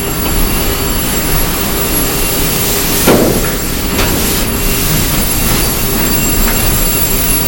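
Loud steady rushing noise of an interior fire attack inside a burning aircraft-fuselage fire trainer, with a few short louder surges around three and four seconds in.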